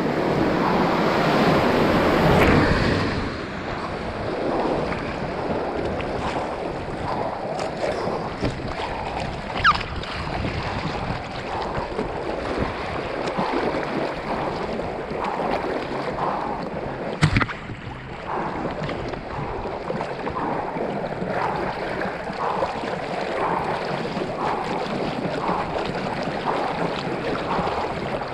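River water rushing and splashing around a hydrospeed board at water level, loudest and most turbulent in the first three seconds through the bridge's sluice, then steadier churning and lapping with regular splashes about once a second. A single sharp knock about seventeen seconds in.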